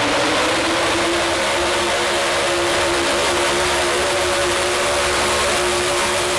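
Outlaw 4x4 pulling truck's engine at full throttle, loud, hauling a weight-transfer sled down the dirt track. Its pitch climbs a little about half a second in, then holds steady at high revs.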